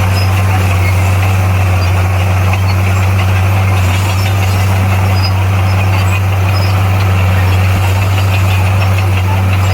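Bulldozer's diesel engine running steadily with a constant low drone, holding one pitch without revving.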